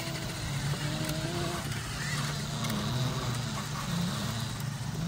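Small motorbike motor running steadily at low speed, its pitch wavering slightly.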